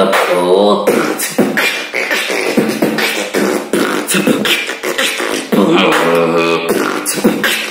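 Solo beatboxing: a man's vocal kicks, snares and hi-hat clicks in a quick steady rhythm, with short sung melodic phrases woven in at the start and again about six seconds in.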